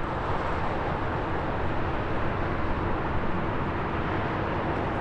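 Steady, even rush of an Airbus A320-200's jet engines as the airliner approaches to land.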